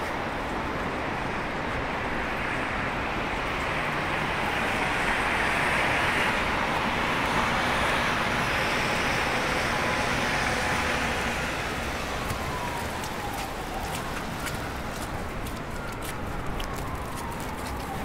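Car traffic on a wet, snowy road: tyres hiss through slush, swelling to a peak midway and then easing, with falling pitch glides as vehicles pass. In the last few seconds come faint crisp ticks, footsteps crunching in fresh snow.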